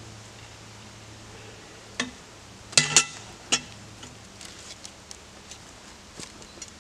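Four sharp metal clanks, the two loudest close together in the middle, from the cant hook and the pine log knocking against the sawmill's steel log bed as the log is levered over.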